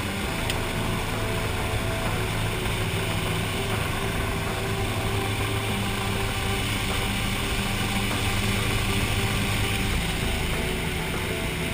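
Floatplane's piston engine and propeller running steadily, heard from inside the cockpit as a loud, even drone.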